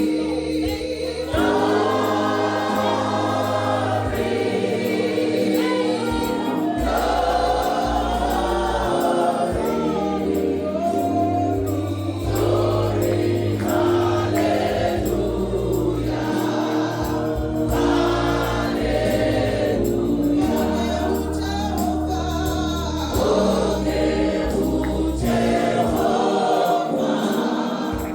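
Gospel choir singing with instrumental accompaniment and a steady bass line.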